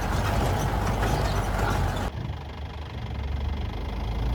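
Safari jeep's engine running as it drives over a rough off-road track, a steady low rumble under a noisy rattle and hiss. About two seconds in the hiss cuts off abruptly and the low engine rumble continues.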